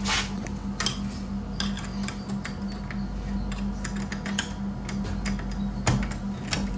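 Background music with a steady, evenly pulsing low note, and scattered sharp clicks and taps over it.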